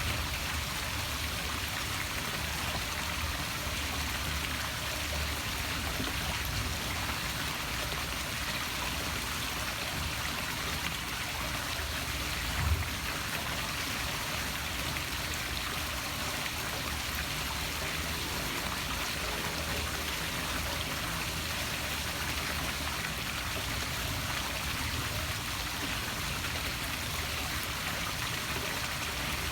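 Poolside waterfall splashing steadily into a pool, a continuous even rush of falling water, with one brief low thump about halfway through.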